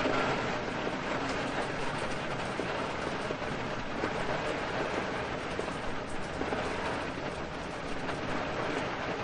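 Steady heavy rain with a low, continuous rumble underneath.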